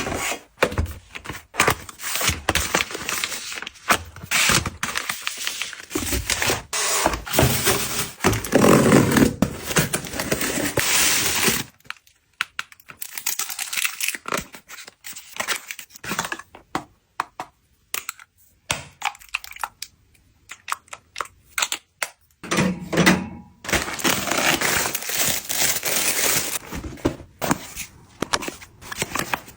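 Packaging being handled and opened: crinkling, tearing and knocking of wrapping and boxes, with a quieter stretch of scattered clicks in the middle.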